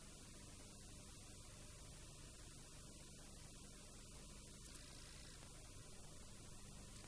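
Near silence: a faint, steady mains hum under a light hiss, the background noise of an old VHS recording.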